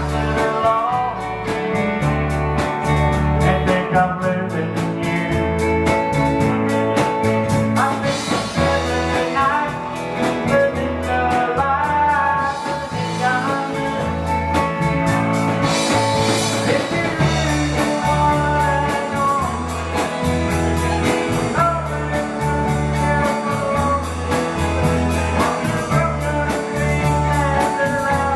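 Live country band playing a song, with a bass line moving note by note under a steady beat.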